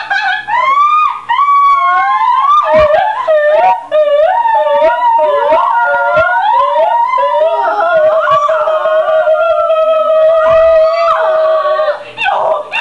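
A girl's voice making high, howl-like noises: quick swoops up and down in pitch, then one long held, slightly wavering note for about five seconds that breaks off near the end.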